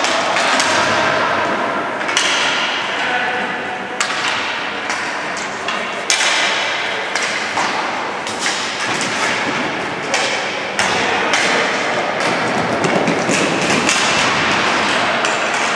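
Ball hockey play: repeated sharp knocks of sticks striking the ball and the concrete floor, with the hard plastic ball clacking around, echoing in the hall.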